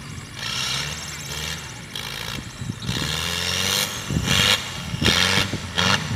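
Off-road 4x4 engine revving repeatedly, its pitch climbing and dropping in surges, with several loud rushes of noise over it.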